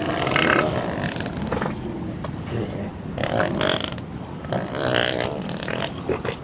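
Elephant calling with low, rough vocal sounds that swell louder three times.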